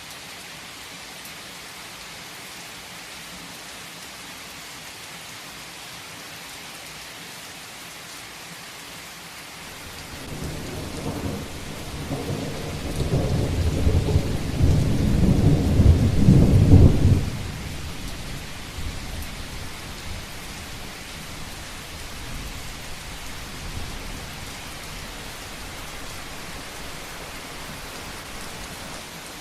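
Steady heavy rain falling, with a long roll of thunder that builds about a third of the way in, peaks near the middle and rumbles away over several seconds.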